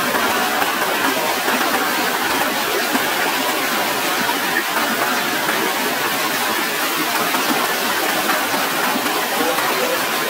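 Small waterfall pouring over rocks into a forest stream: a steady, loud rush of water, with hands splashing in the falling water.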